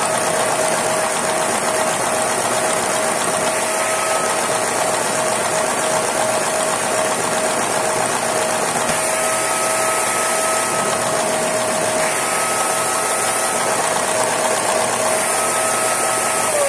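Brick-built Lego 770 cc inline-four vacuum engine with a crossplane crankshaft, running steadily on suction from two vacuum cleaners. The vacuum motors' steady whine and rush of air mix with the mechanical running of the Lego pistons, valves and crankshaft.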